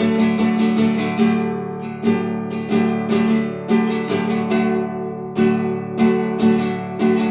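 Solo classical guitar with nylon strings, played fingerstyle: a steady run of plucked notes and chords, each ringing and decaying, picked up from a couple of metres away in a room.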